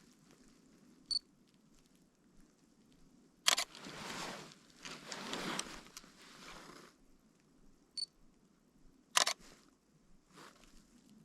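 Lumix G7 mirrorless camera taking two photos: each time a short high electronic focus-confirm beep, followed a few seconds later by a sharp shutter click. Between the two shots there are a few seconds of snow crunching underfoot.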